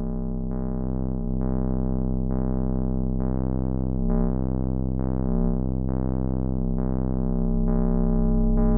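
Synthesizer with an electric-piano tone: a note or chord struck about once a second over sustained low tones, each strike fading away, growing slightly louder near the end.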